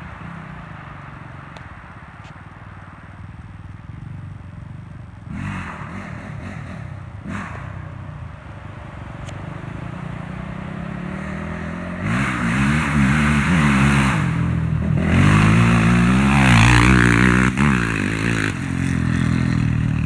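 2014 Honda TRX450R single-cylinder four-stroke engine through a Curtis Sparks exhaust. It idles at first, is blipped twice, then is revved hard again and again from about halfway through, its pitch rising and falling with each rev.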